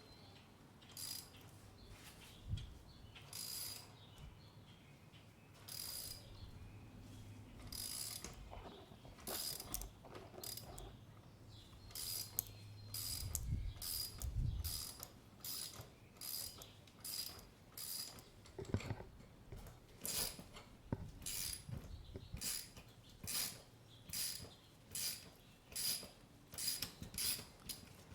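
Ratchet wrench clicking in repeated short strokes as it turns a motorcycle chain breaker's press screw, pushing a pin out of a drive chain link; the strokes come quicker in the second half, with a few low knocks of the tool among them.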